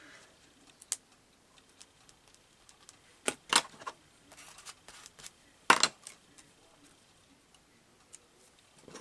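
Scattered sharp clicks and taps of craft supplies being handled at a worktable, the loudest a short cluster about three and a half seconds in and another about six seconds in.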